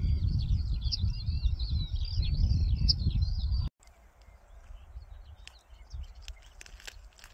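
Small songbirds chirping and singing in a dense, varied chorus over a loud low rumbling noise. About three and a half seconds in, it cuts off abruptly to a much quieter stretch with only faint background noise and a few soft clicks.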